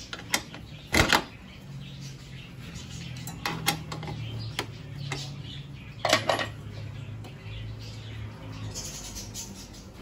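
A hand tool clinking and tapping on the metal hood latch and its steel mounting while the latch bolt is tightened: a handful of irregular sharp metallic clicks, the loudest about a second in and again about six seconds in.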